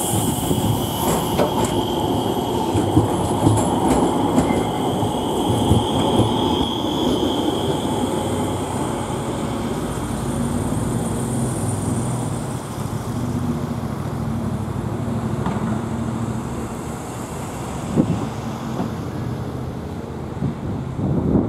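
Alstom Citadis trams on street track. One passes close by with its wheels rumbling and clicking over the rails and a high steady squeal that dies away after about seven seconds, and a second tram approaches round a curve. There is one sharp knock near the end.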